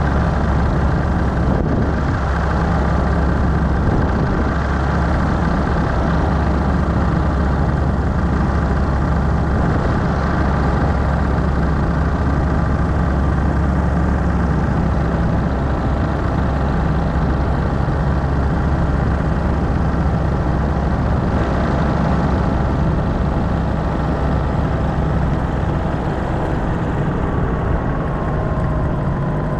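Paramotor engine and propeller running steadily, its pitch dipping slightly near the end.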